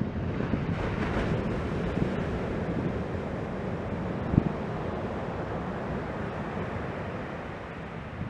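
Ocean surf breaking and washing up the beach, mixed with wind rumbling on the microphone. A single low thump about four seconds in.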